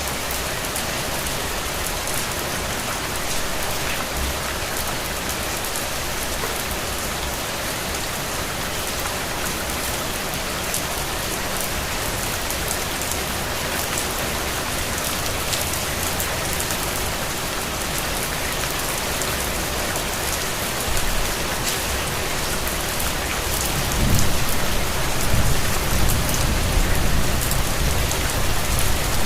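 Steady heavy rain, a dense even hiss of drops falling on a surface. In the last few seconds a low rumble comes in and grows louder.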